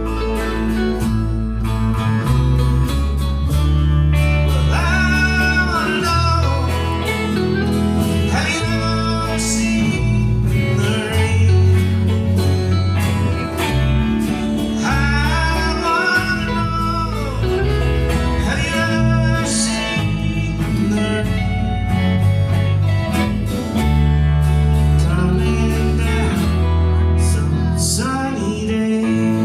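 Acoustic string band playing a country-style song, with strummed and picked guitars over steady bass notes and a melody line that bends in pitch.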